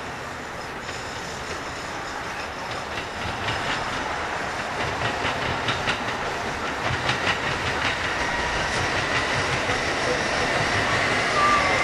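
Metra Electric bilevel electric multiple-unit train passing, its wheels clicking over the rail joints and getting louder as it draws near. A steady high whine comes in near the end.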